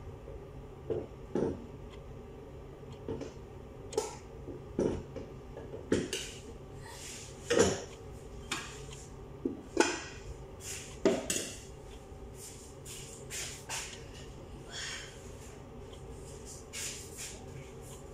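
Metal cooking pots and utensils clinking and knocking now and then, with a few louder clanks about halfway through.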